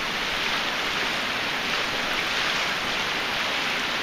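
A creek running steadily, an even hiss of flowing water.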